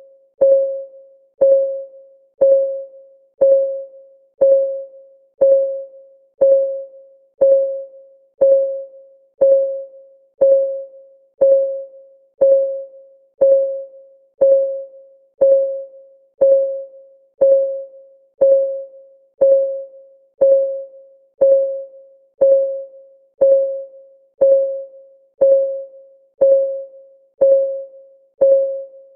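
Countdown timer's clock ticking sound: a short tick once a second, each with a brief pitched ring that dies away quickly, evenly spaced.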